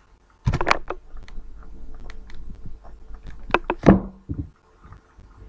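Knocks and clatters of kitchen bowls being handled and set down on a table: a cluster of sharp knocks about half a second in, and another, louder one about four seconds in.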